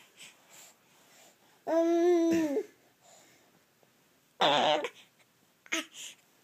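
Baby babbling and squealing in play: one long held, pitched squeal about two seconds in that drops away at its end, then a shorter breathy squeal about halfway through and a few small sounds near the end.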